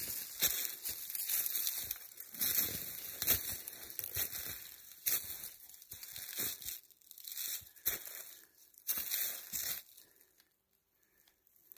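Dry fallen leaves and brittle brush crunching and rustling under footsteps, in irregular clusters, stopping about ten seconds in.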